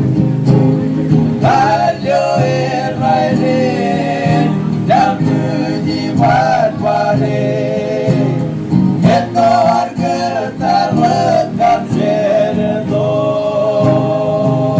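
A group of voices singing together in harmony over steadily strummed string instruments.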